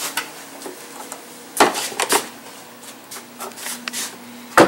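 Sharp clacks and knocks of hard plastic as the VW's plastic engine cover is gripped and tugged at its front edge, the loudest about a second and a half in and again near the end.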